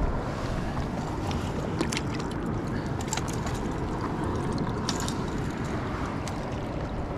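Steady rushing of water and wind on the microphone at the water's edge, with a few short sharp clicks while a small northern pike is lifted out of the shallows by hand.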